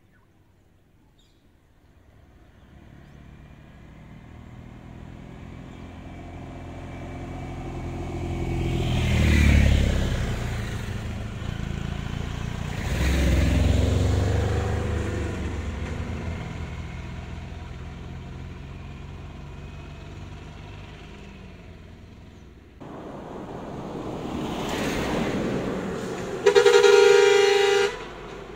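Motor vehicles passing one after another, each engine swelling and fading. Near the end comes a loud, steady vehicle horn blast lasting about a second and a half.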